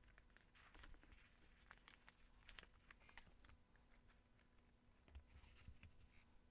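Faint rustling and light taps of paper being handled by hand: a paper cutout pressed onto a junk journal page and the pages smoothed flat.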